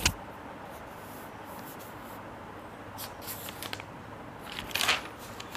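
Quiet room tone with a click at the start, a few faint ticks about three seconds in, and a short scratchy rustle near the end: small handling noises.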